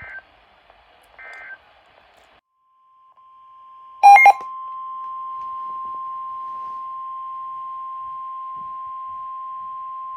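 NOAA Weather Radio warning alarm tone: a single steady high tone of about a thousand hertz that fades in a couple of seconds in and then holds loud and unbroken, announcing a new warning. About four seconds in, a short, sharp double beep sounds over it. Before the tone, faint radio hiss with two short blips.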